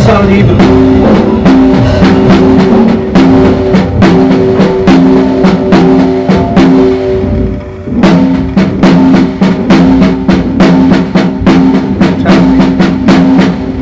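Snare drum played with sticks by two drummers at once, fast strokes running together over the drum's ringing tone. The playing breaks off briefly a little past halfway, then starts again.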